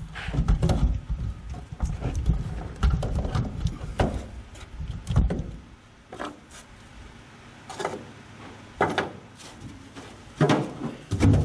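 Rumbling handling noise, then scattered metal knocks and clicks about once a second as a trunk lid hinge tension bar is worked into its groove.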